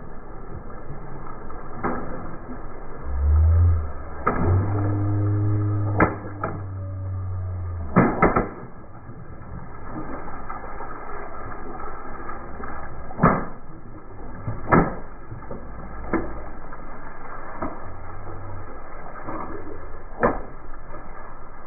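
Car driving slowly over objects with its engine running low, and several sharp cracks and pops as things break under the tyres.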